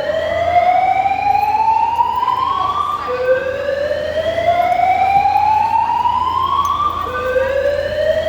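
Building evacuation alarm sounding a slow rising whoop: each tone climbs steadily for about four seconds, then drops back and starts again. A new sweep begins about three seconds in and another about seven seconds in.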